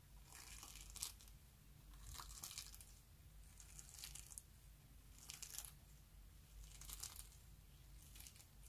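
Faint crinkling crunch of plastic flower-shaped sequins pressed into clear slime by fingers, coming in six short bursts about one every second and a half.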